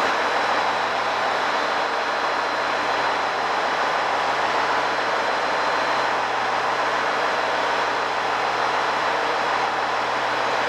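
Hybrid diesel express train (JR HC85 type) standing at the platform with its diesel generator engine and cooling fans running: a steady, even whir with a thin high whine over it.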